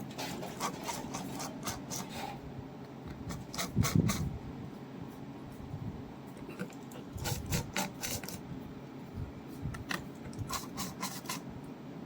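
Scraping, rubbing and clicking of a repair tool working at a mobile phone's swollen battery, with a knock about four seconds in.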